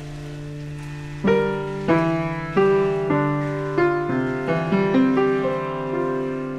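Background music: a soft held low chord, joined about a second in by a slow line of piano notes, each struck and left to ring.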